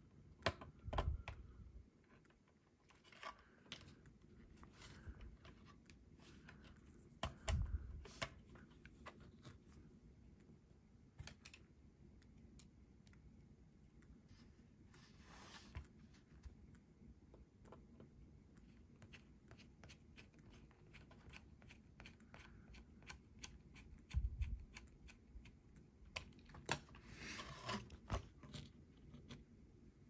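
Small plastic parts of a 1/24-scale RC crawler being handled and fitted together: scattered light clicks and scrapes as the plastic body is snapped back onto the chassis, with a few soft thumps.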